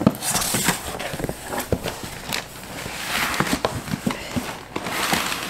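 Cardboard shipping box being opened by hand: flaps pulled back and cardboard scraping and rustling, with scattered small knocks.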